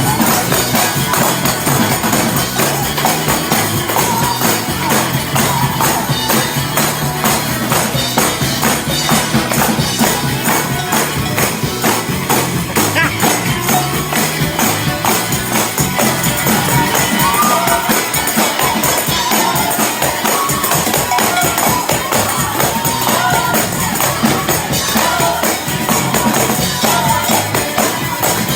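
Many tambourines shaken and struck together in a fast, driving praise-break rhythm, a dense jingling din. Voices shout and sing over them, more clearly in the second half.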